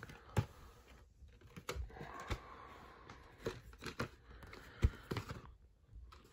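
VHS tape cases handled and turned over on a bed: scattered light clicks and knocks of the cases, with soft rustling.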